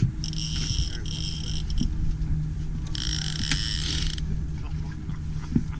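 A fishing reel whirring with a high-pitched, even whine in two spurts of a second or so each while a big striped bass is being fought. Underneath there is a steady low hum.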